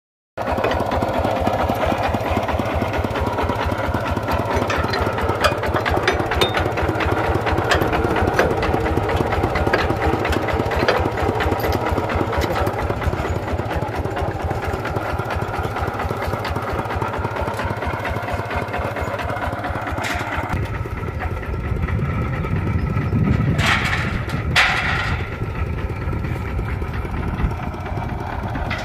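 Kubota walking tractor's single-cylinder diesel engine running steadily, with an even, rapid chugging pulse. About two-thirds of the way through, the sound turns duller and deeper, and two short noisy bursts come a second apart.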